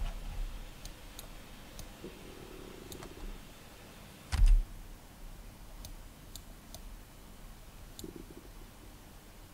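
Computer mouse clicking at irregular intervals, about nine short clicks, with one louder knock with a dull thud about four seconds in.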